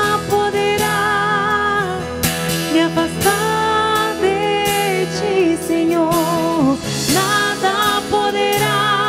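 Live Christian worship music from a band: a slow song with held melody notes wavering in pitch over steady chords, with occasional drum hits.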